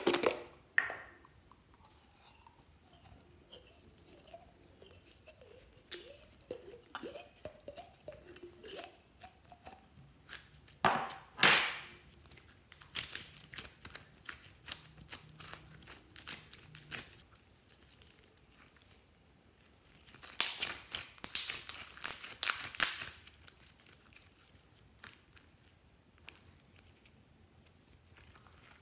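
Sticky glitter clear slime being stretched and folded by hand, giving crackling, popping and squelching, loudest in two bursts about a third and two thirds of the way through. Near the start there is a sharp click from the plastic container being opened.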